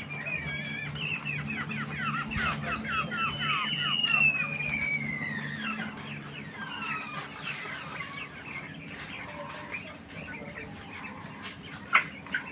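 Caged Japanese quail hens calling before laying: a rapid run of short falling chirps, then one long falling whistle-like call, with scattered calls after. A single sharp click near the end.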